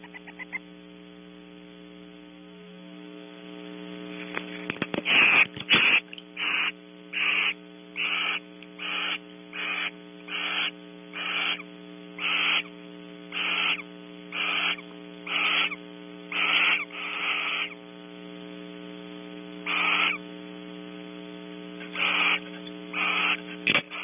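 Barn owl giving a long run of short, harsh hissing calls, roughly one every three-quarters of a second, starting about five seconds in and pausing briefly near the end. A steady electrical hum runs underneath.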